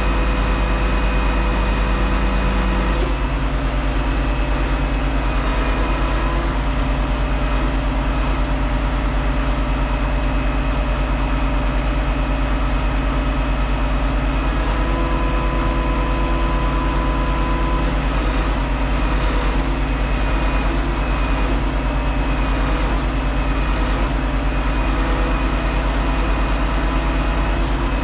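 Heavy diesel truck engine running steadily, with a slight change in tone about three seconds in.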